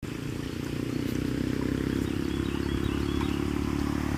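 Motorcycle engine running on a nearby road, growing steadily louder as it approaches.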